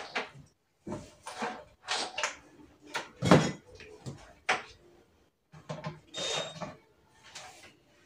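Irregular knocks, scrapes and clatter of an IKEA flat-pack cabinet's panels and hardware being handled during assembly, the loudest knock a little over three seconds in.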